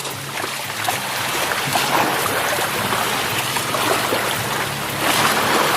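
Sea waves washing onto the beach at high tide, an even wash of surf with a louder surge about five seconds in, over a faint low steady hum.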